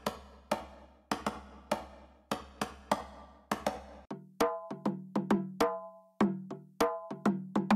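Tropical house percussion loop samples previewed one after another. First a reverb-drenched ('wet') percussion loop with hits about every half second over a low steady hum. About four seconds in it switches to a drier loop of short, pitched, wood-block-like knocks.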